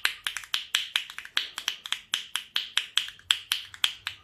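A miniature hand drum, the smallest drum in the world, played with the fingertips in a fast run of sharp, light taps, several a second, with some strokes louder than others.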